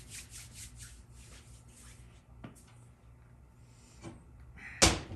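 Faint rubbing and scraping of metal parts being handled in a transmission case, with a few light clicks and one sharp click near the end.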